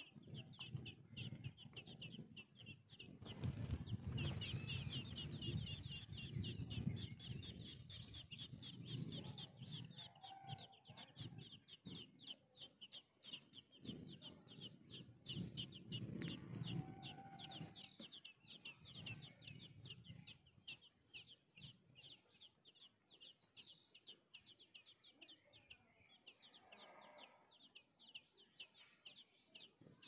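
Nestling songbirds in the nest begging with a dense stream of rapid, high-pitched cheeps, many calls a second, while an adult feeds them. Low, rough sounds run under the cheeping through the first half and fade away. The calling grows fainter over the last third.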